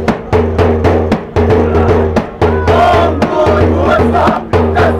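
A large hand-carried drum beaten in a steady fast rhythm, about three to four strokes a second, for a street-theatre troupe. From about halfway through, a group of voices chants over the beat.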